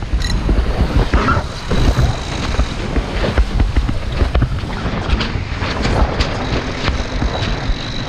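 Wind buffeting the microphone over water rushing past the hull of a Diam 24 trimaran under way, with scattered sharp clicks and knocks from lines and deck fittings being worked.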